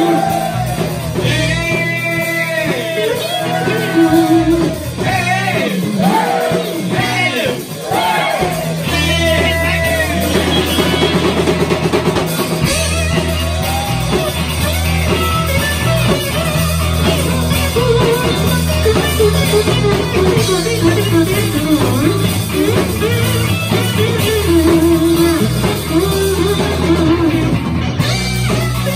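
Live rock-and-roll band playing: a man singing over electric guitars, electric bass and drum kit, then from about nine seconds in an instrumental stretch with the guitars carrying the lines over a heavier bass and drums.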